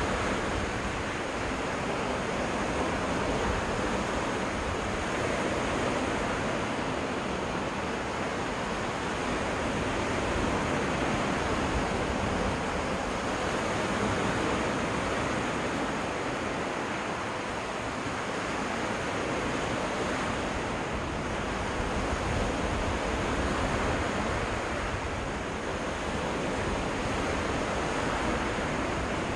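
Small waves washing onto a freshwater lake beach: a steady wash of surf that swells and eases every few seconds.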